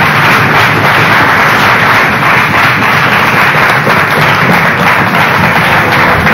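Studio audience applauding, many hands clapping steadily together.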